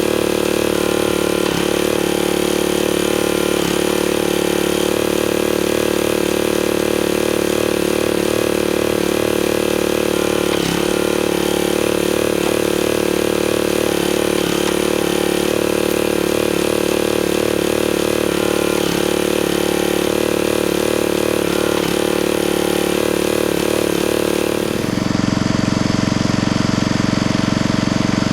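Log splitter's small engine running steadily, with a few faint knocks. Near the end its note drops lower.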